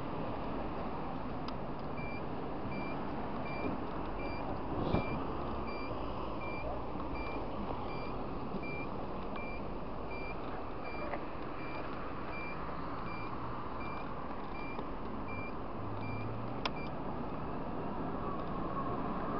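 Scooter engine running under way with steady wind and road noise. A high electronic beep repeats about one and a half times a second from about two seconds in until near the end, typical of the scooter's turn-signal buzzer.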